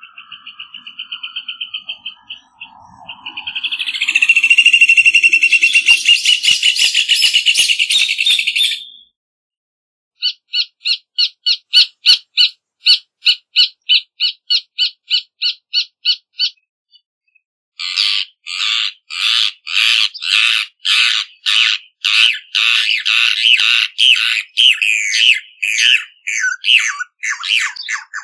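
Rufous hornero singing: loud bouts of rapid, shrill repeated notes. The first bout quickens into a fast trill, the second is an even series of about three to four notes a second, and the last is denser and uneven.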